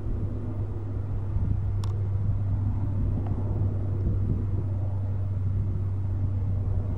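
Steady low engine rumble with a constant deep hum, growing slightly louder after about a second, and one faint sharp click about two seconds in.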